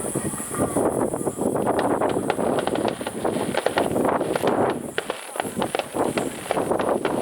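Starmine aerial fireworks crackling and popping, a dense run of sharp cracks that thickens about a second and a half in.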